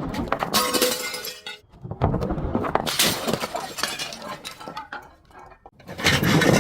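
Glass bottles breaking, several sudden crashes with shards clinking and briefly ringing, then a quieter stretch before another crash near the end.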